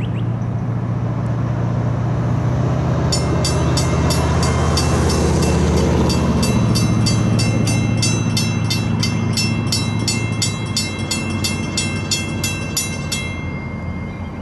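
EMD SD40-2 diesel locomotive with its 16-cylinder two-stroke engine passing close by, its engine note dropping about halfway through. A bell rings about three times a second from about three seconds in until near the end.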